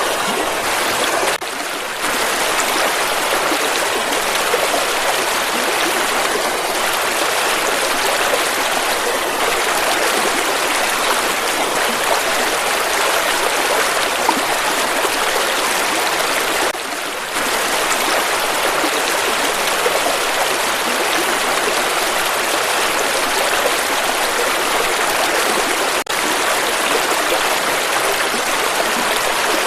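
River water flowing steadily in a continuous rush, dipping briefly twice.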